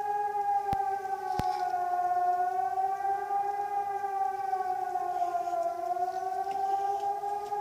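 Air-raid (civil defence) siren sounding a sustained tone that wavers slowly in pitch, dipping slightly a little after five seconds and rising again. Two sharp clicks come about a second in.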